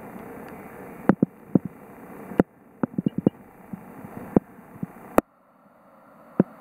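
Underwater sound in a shallow rock pool: a steady wash of water noise with irregular sharp clicks and knocks, several in quick succession about three seconds in. The background wash drops out suddenly twice and builds back up.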